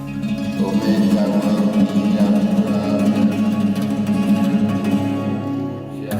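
Music played on a plucked string instrument, with a fast flutter of low notes.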